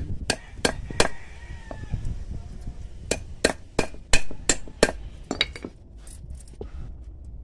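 A hammer tapping a thin metal rod laid on a wooden plank, in sharp ringing strikes: three in the first second, then a run of about eight more, roughly three a second, from about three seconds in to five and a half.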